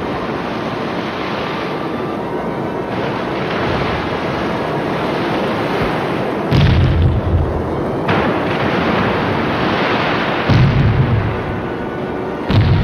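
Loud outdoor night-show sound over the lake: a steady rushing wash of soundtrack from the show's sound system, broken by three deep, heavy booms, the first about halfway through, the second a few seconds later and the third near the end, each lasting about a second.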